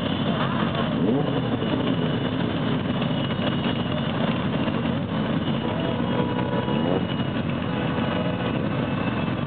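A large crowd of motorcycle engines idling together in a steady din, with single bikes revving up and down about a second in and again near seven seconds in.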